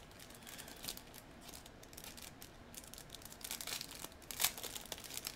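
Wrapping being crinkled and torn open by hand, a run of small irregular crackles, the loudest about four and a half seconds in.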